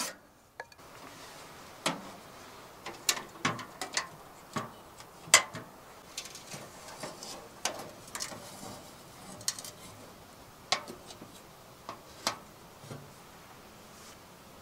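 Scattered metal clinks and clacks from a small steel wood stove being handled: the firebox door, its latch and the round spin-draft air vent on the door being worked. The sharp clicks come about once a second, with one louder clack about five seconds in.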